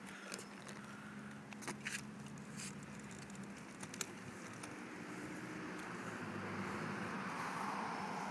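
Street traffic hum from the road beside the park, with a car passing that swells in the second half. Scattered faint clicks and crackles in the first few seconds.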